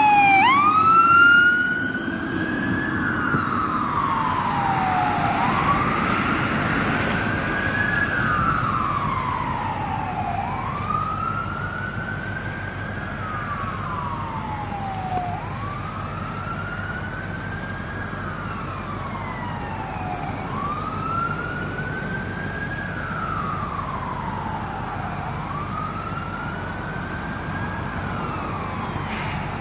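Electronic emergency-vehicle siren on a slow wail from a fire-rescue engine and medic unit responding with lights on, each rise and fall taking about five seconds. It is loudest in the first two seconds as the apparatus passes, with a quick drop in pitch and the trucks' engine and road noise, then grows gradually fainter as they drive away.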